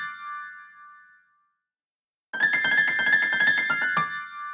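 Apple iPhone ringtone preview: a quick run of bright keyboard-like notes. The end of one play rings out over the first second, and after a short silence the same run plays again from about two seconds in.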